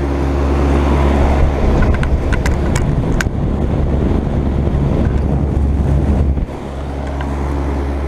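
Trane Odyssey heat pump outdoor unit running in heat mode, just kicked on: a steady low hum under the rush of air from its condenser fan. The rush swells in the middle with a few sharp clicks, then drops off suddenly about six and a half seconds in while the hum carries on.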